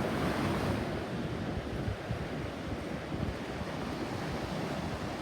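Ocean surf washing onto the beach, with wind buffeting the microphone in low gusty rumbles. A wave swells up about half a second in.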